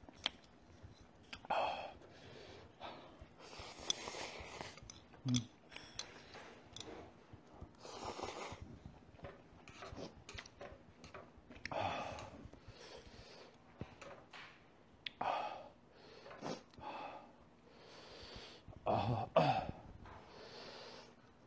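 A person eating spicy noodles with metal chopsticks: irregular slurps, chewing and breaths every few seconds, with a few sharp clicks of chopsticks against the bowl and pan.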